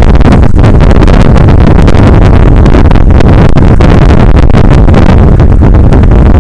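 Strong wind buffeting the microphone, a loud, continuous low rush with constant crackling where it overloads the recording.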